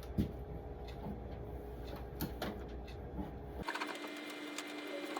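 A cloth wiping and rubbing a refrigerator shelf, with scattered light knocks, over a steady hum. The sound changes abruptly about three and a half seconds in.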